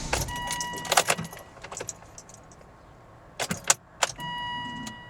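Keys jangling and clicking at a Volvo's ignition as the key is worked, while a dashboard warning chime sounds a steady tone twice, briefly near the start and longer near the end.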